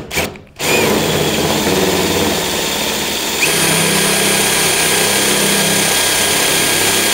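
Cordless drill spinning a spot weld cutter through the sheet-metal roof skin, cutting out a spot weld, with a steady grinding whir. About three and a half seconds in the sound changes and a thin high whine appears as the cutter bites deeper.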